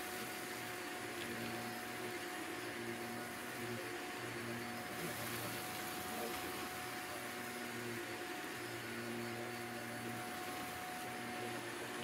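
Shark upright vacuum cleaner running steadily, a hissing rush of air over a motor hum and whine, as it sucks up loose pet bedding from a carpet.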